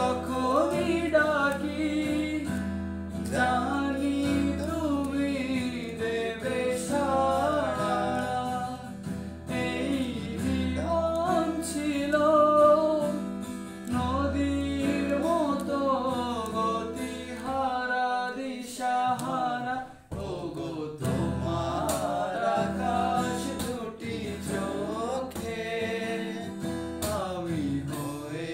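A man singing a Bengali song while playing an acoustic guitar, with a brief break about two-thirds of the way through.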